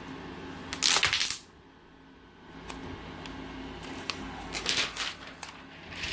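Protective plastic film being peeled off a new laptop display panel: a short loud rip about a second in, then quieter rustles of the film near the end.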